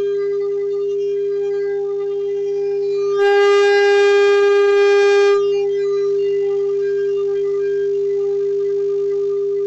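A conch shell (shankh) blown in one long, steady note. The note swells louder and brighter about three seconds in for roughly two seconds, then settles back to its earlier level.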